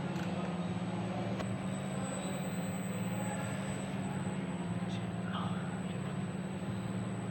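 A machine running with a steady low hum and a constant high-pitched whine, with a few light clicks.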